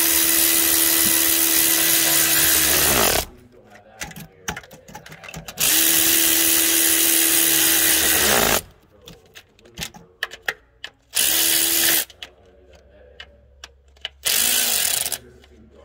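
A power tool spinning an 8 mm socket, running down the valve cover bolts, which have metal inserts so they cannot be over-torqued. It runs four times with a steady whine: two runs of about three seconds each, then two short ones near the end, with light clinks of handling between.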